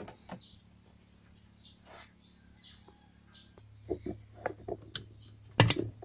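Faint bird chirps in the background, repeated every half second or so. Near the end come a few light taps and a sharp click, as a tool works at the centre cap of the washing machine's plastic pulsator.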